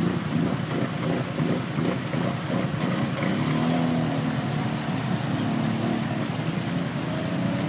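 Arctic Cat Mud Pro 1000 ATV's V-twin engine running under throttle while the machine is almost submerged in a river, over the sound of churning, splashing water. The engine note steadies and rises a little for a few seconds midway through.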